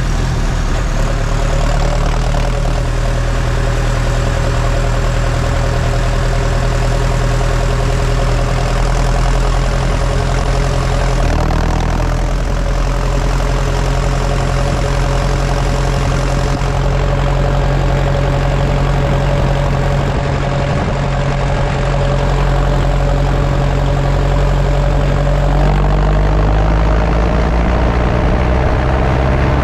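New Holland T5050 tractor's four-cylinder diesel engine running steadily, heard close to the exhaust stack as the tractor drives. The pitch dips briefly about a third of the way in and rises near the end as the engine revs up.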